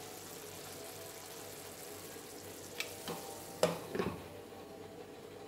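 A pan of chicken curry sizzling softly, with four knocks of a spoon against the pan between about three and four seconds in, the third the loudest.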